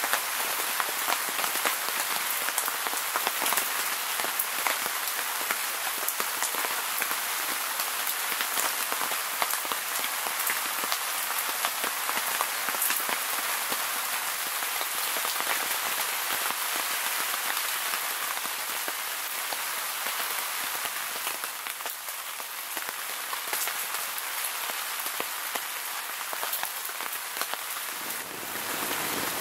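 Rain falling steadily: a dense hiss dotted with many sharp hits of single drops.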